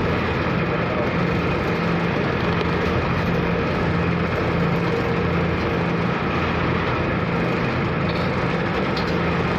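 Car ferry KMP Sumut 2's engines running steadily under way, heard on board as a constant low drone with a steady hum and a wide rush of noise over it.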